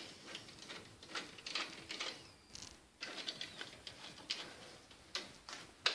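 Horizontal window blinds being tilted, the slats clicking and rattling softly in a scatter of light, irregular clicks.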